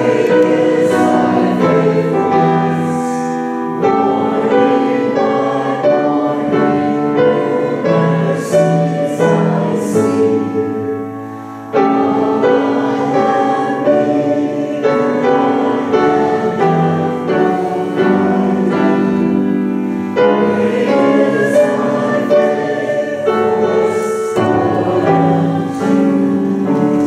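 Congregation singing a hymn together with keyboard accompaniment, in phrases of a few seconds each.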